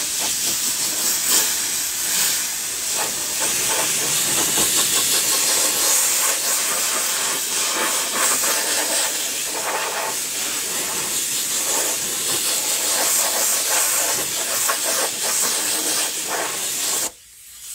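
Compressed-air spray gun spraying adhesive in a steady hiss, with small changes as the trigger is worked. It cuts off sharply near the end.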